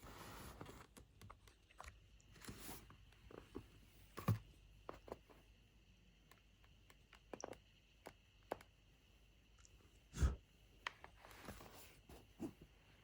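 Faint, irregular squeaks and clicks from a MacBook Pro 16-inch M2's bottom case as it is pressed gently, with two louder clicks about four and ten seconds in and soft rubbing between them.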